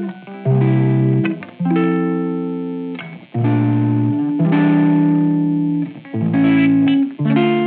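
Background music: held chords that change about once a second, with short breaks between them.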